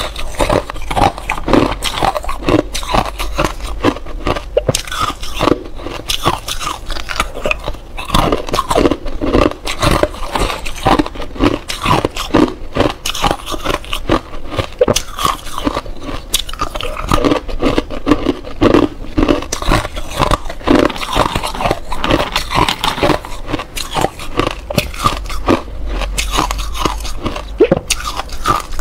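Close-miked biting and chewing of clear ice cubes: a continuous run of sharp crunches and cracks, several a second.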